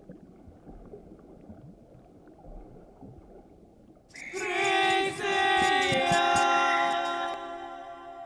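A faint low rumbling noise, then about four seconds in a short choral music cue of held wordless voices swells in as one sustained chord and begins to fade near the end.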